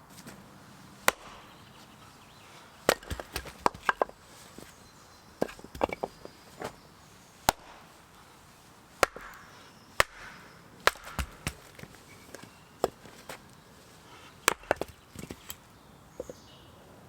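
Firewood being chopped and split by hand: irregular sharp wooden knocks, some single and some in quick clusters of two or three.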